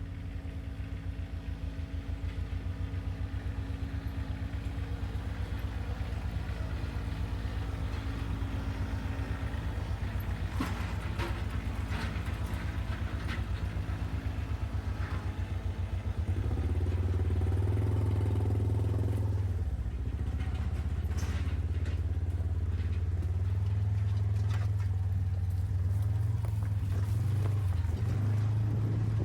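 Portable sawmill's engine running steadily while milling a cedar log, with scattered knocks and clatter. It gets louder about halfway through.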